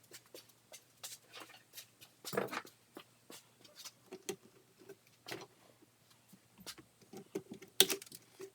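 Scattered light clicks, taps and scrapes of hand tools and parts being handled, with a sharper knock about two and a half seconds in and another near the end, over a faint steady hum.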